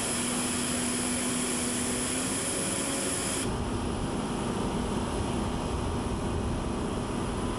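Steady rushing machine noise of running aircraft or ground equipment, with a low steady hum for the first two seconds. About three and a half seconds in, the sound changes abruptly to a deeper, duller rumble.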